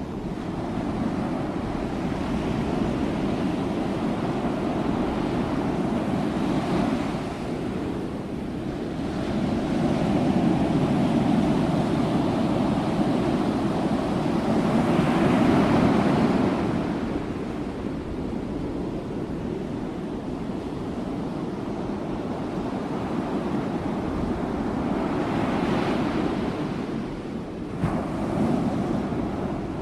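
Ocean waves breaking and washing on a shore, in slow swells every several seconds, with the strongest surge about halfway through.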